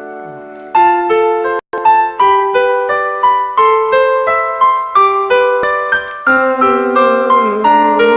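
Instrumental break played on an electronic keyboard with a piano-like voice: a melody of single notes at about two a second. It picks up after a brief lull at the start and drops out for an instant a little under two seconds in. A lower, held part joins about six seconds in, and sliding, bent notes come in near the end.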